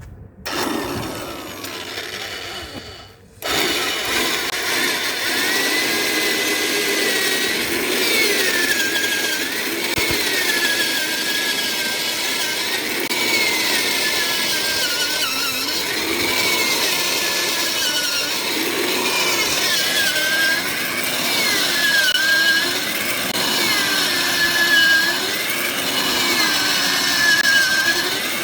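Heavy-duty drill machine with an auger bit boring a hole into soil. It runs briefly about half a second in, drops off for a moment, then runs without a break from about three and a half seconds, its motor pitch wavering up and down as the digging load changes.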